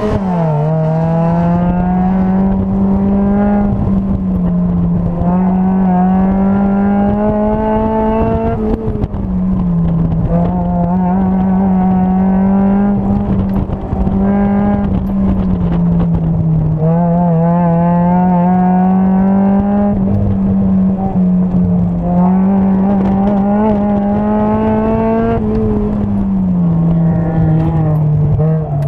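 Mazda Miata's four-cylinder engine pulling hard through an autocross run, heard from inside the open cockpit. The revs climb slowly and drop back every few seconds, about four times, without ever falling to idle.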